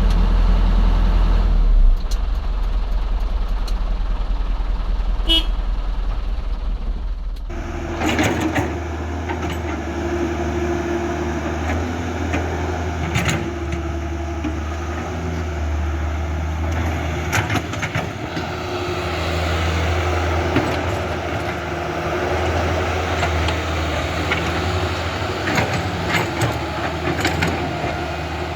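Remote-control toy construction machines running: a steady low engine-like hum with scattered clicks and clatter, the hum changing about seven seconds in.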